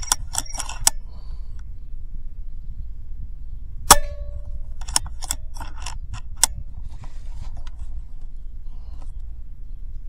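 A PCP air rifle, a DAR .22 Gen III, being shot and handled: a run of sharp clicks and knocks. The loudest is a single sharp crack about four seconds in with a short ring after it, and more clicks follow about a second later. A steady low rumble lies under it all.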